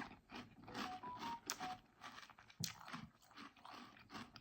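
Someone chewing a mouthful of crunchy chocolate cereal in milk: a run of soft crunches, a few a second, with a couple of sharp clicks.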